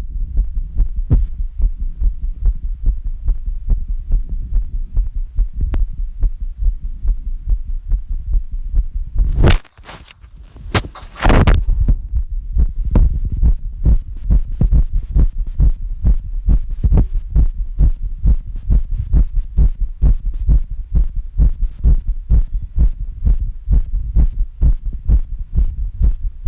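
A person's heartbeat recorded through a phone app's microphone: a steady, regular run of low thumps. About ten seconds in, loud handling noise and a brief drop break the beats, which then carry on.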